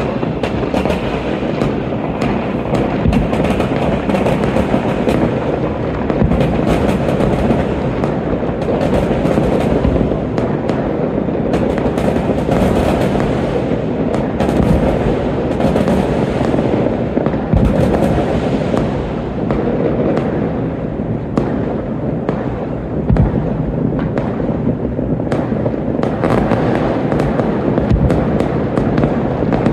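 A continuous barrage of many fireworks going off at once across a city: countless overlapping bangs and crackles merging into a steady, dense wash of sound.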